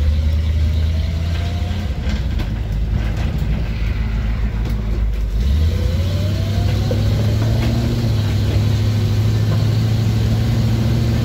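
The 1976 International Scout II's V8 engine running as the truck pulls away and drives off, heard from inside the cab. About halfway through the engine note rises as it accelerates.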